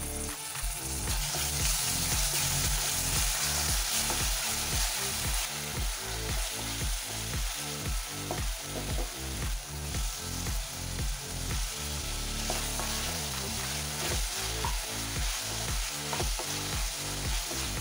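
Onions, green chillies and ginger-garlic paste sizzling in hot oil in a kadai while being stirred with a wooden spatula, with chopped tomatoes frying among them partway through. Background music with a steady beat runs underneath.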